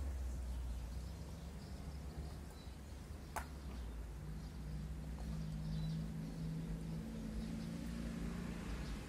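Outdoor ambience: a steady low hum with faint bird chirps, and one sharp click about three and a half seconds in.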